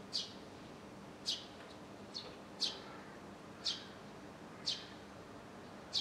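Eurasian tree sparrow chirping, a series of short, sharp chirps about once a second, each dropping quickly in pitch.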